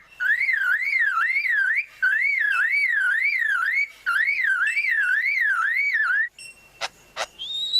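Superb lyrebird mimicking a car alarm: a loud warbling whistle swinging up and down about four times a second, in three long runs with short breaks. Near the end come two sharp clicks and the start of a rising tone.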